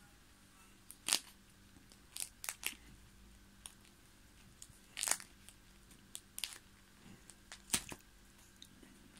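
Plastic sleeves of a trading-card binder crinkling as a hand handles and turns the pages: about half a dozen short rustles, the loudest about a second in and near five and eight seconds.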